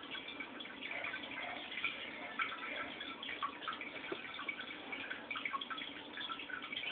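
Aquarium water trickling and dripping: a steady patter of small splashy drips.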